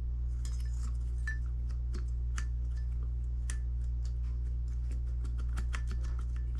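Light, irregular metallic taps of a small hammer on a punch, driving a part out of a refrigerator fan motor. A steady low hum runs underneath.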